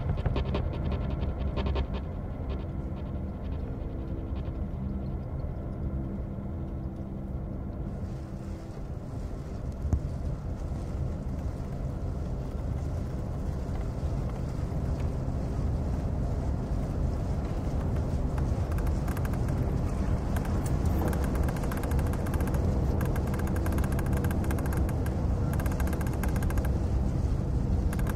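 Experimental improvised electroacoustic music: a dark, droning rumble of held low tones that slowly thickens, with one short knock about ten seconds in.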